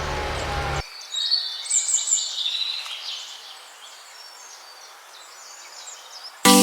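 Birds chirping in short, high calls that thin out into a faint hiss, after a low steady hum cuts off suddenly about a second in. Mallet-percussion music starts at the very end.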